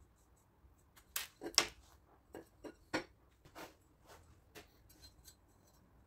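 Irregular light clicks and knocks, about ten in all. The loudest is a quick group of three about a second in, followed by fainter, sparser taps.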